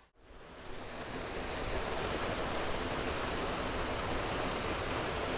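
Steady rush of flowing creek water that fades in over the first second or two after a brief silence.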